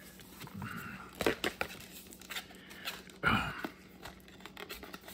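A white cardboard box being handled and pried open by hand: paperboard flaps rubbing and scraping, with scattered light taps and a louder scuff about three seconds in.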